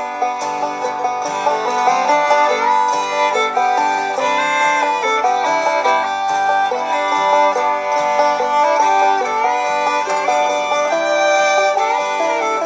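Bluegrass background music: banjo picking with fiddle, steady and upbeat.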